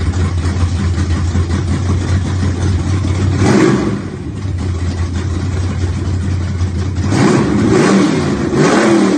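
Car engine running steadily, revved about three and a half seconds in and again near the end, then cut off suddenly.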